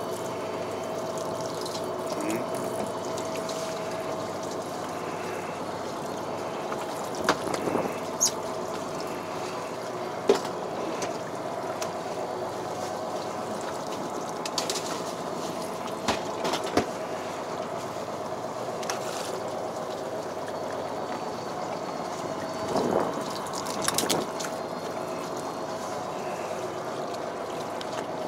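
Steady drone of a fishing boat's engine with a few held tones, broken by scattered sharp knocks and clicks of fishing tackle being handled against the gunwale, the loudest about ten seconds in.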